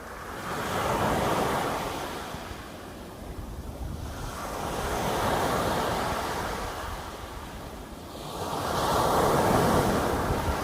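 Sea waves breaking on the shore, three slow surges of surf about four seconds apart, with wind on the microphone.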